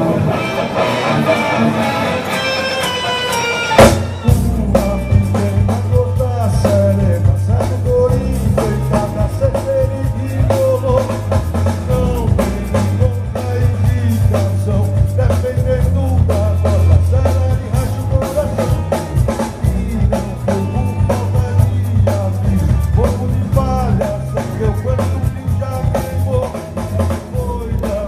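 Live rock band playing manguebeat, with electric guitar, bass and drum kit; about four seconds in, a loud hit brings in the full band with heavy bass and drums.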